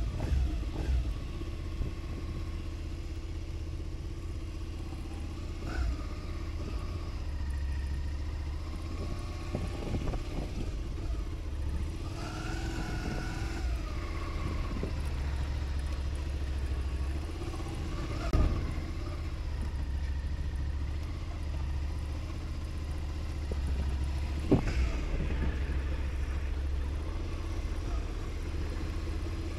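Motorcycle engine running at low speed through a tight cone course, its pitch rising and falling a little around the middle, with a few short knocks.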